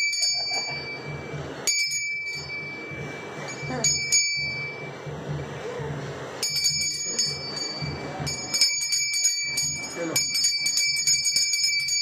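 Small brass temple hand bell (ghanti) rung during the food offering to the goddess. It rings in short spells near the start, at about 2 s and about 4 s, then keeps ringing with quick strokes from about halfway to the end.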